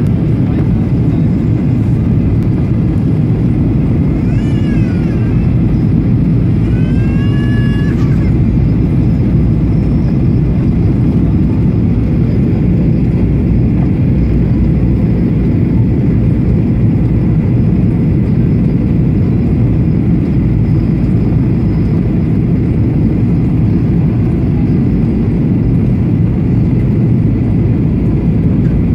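Jet airliner cabin noise from a seat over the wing: the engines and rushing air make a loud, steady roar. Two brief high-pitched sounds stand out about four and seven seconds in.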